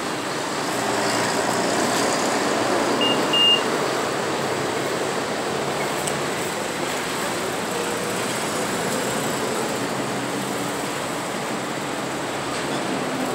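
Porsche Boxster Spyder's flat-six engine running at low speed as the car rolls out and pulls past, over steady street traffic noise. Two short high beeps sound about three seconds in.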